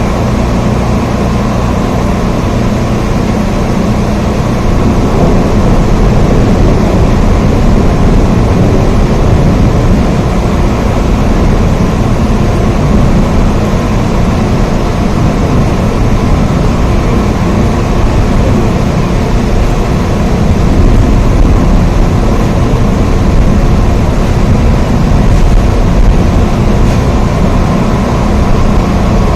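Steady rain, an even unbroken rushing noise with a deep rumble beneath it.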